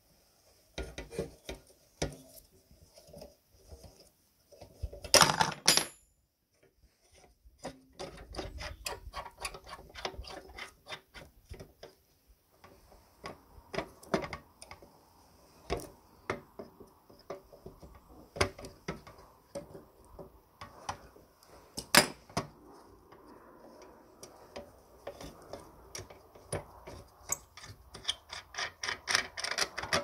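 Metal clicks, taps and clanks of pliers gripping and working loose the crank fittings on a tin coffee grinder, with a louder clatter about five seconds in and a quick run of small clicks near the end.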